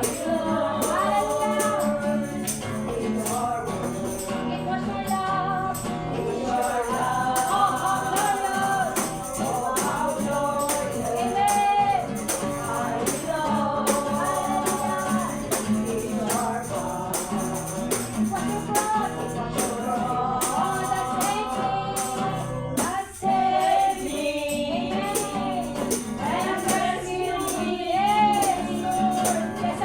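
Congregation singing a worship song, with a tambourine keeping the beat and a steady instrumental accompaniment. The music drops out briefly about three quarters of the way through.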